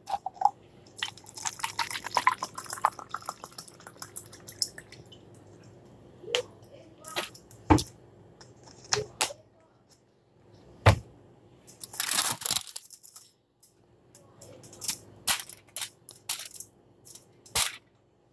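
Handling noises from a plastic water bottle and a plastic cup: scattered sharp knocks, the loudest about eight and eleven seconds in, with brief noisy bursts between them.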